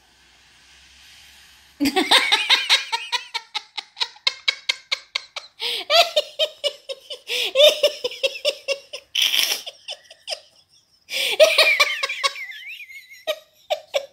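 A person laughing hard in long fits of rapid, high-pitched giggles, starting about two seconds in, with a short break near ten seconds before the laughter picks up again.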